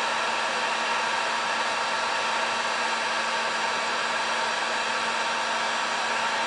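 Electric heat gun running steadily: an even rush of blown air with a low hum under it.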